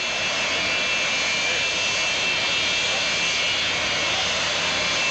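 Engines of a large four-engine turbofan cargo jet running as it taxis, a steady rushing noise with a thin high whine.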